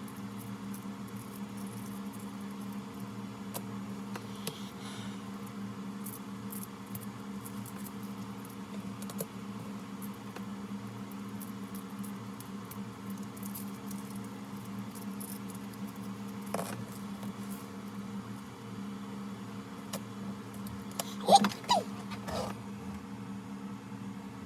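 Steady low hum of room noise with scattered faint ticks and taps, and a short cluster of louder clicks near the end.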